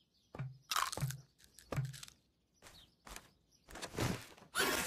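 Cartoon squirrel crunching an acorn in a few short separate bites. Near the end comes a loud harsh rush of noise with a falling cry in it.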